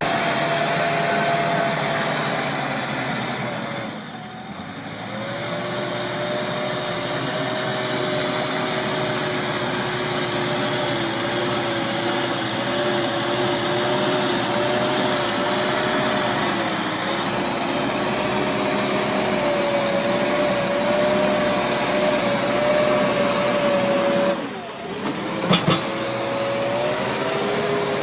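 Hidromek 102S backhoe loader working, its diesel engine running steadily under load with a wavering whine over it. The sound dips briefly twice, about four seconds in and about 24 seconds in, and a couple of sharp knocks follow just after the second dip.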